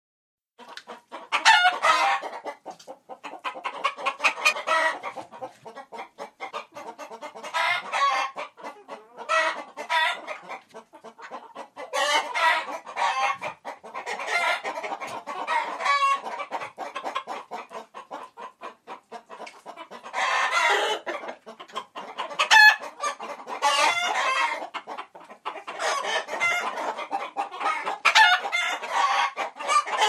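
A flock of many chickens clucking, with rapid runs of clucks coming in overlapping bursts.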